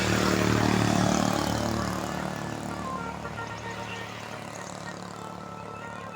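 A tour bus passing close by and pulling away, its engine and tyre noise fading steadily.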